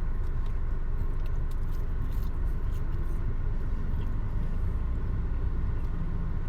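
Steady low rumble, with a few faint clicks while fries are being eaten.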